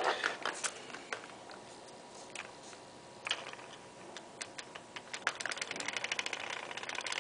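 A few scattered clicks and knocks, then about five seconds in a reed switch motor running with a fast, even ticking that quickens as it speeds up.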